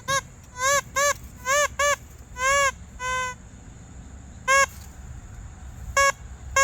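Metal detector in discrimination mode giving about nine short, low target beeps in irregular clusters, each tone bending slightly up and back down in pitch. The detectorist is unsure whether this tone means steel.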